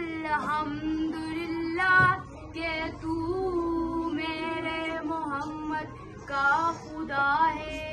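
A girl's solo voice singing a naat, an Urdu devotional song in praise of the Prophet, in drawn-out, ornamented phrases with short pauses between them.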